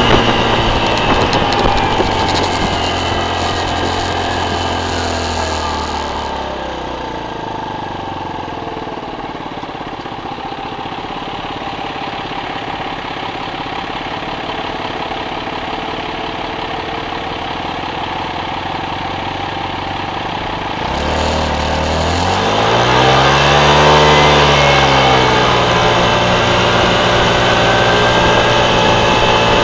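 Motor vehicle engine, most likely a motorcycle, winding down in pitch over the first few seconds and staying low and quieter for a long stretch. Near the end it revs up with a rising pitch, drops back and settles into steady running.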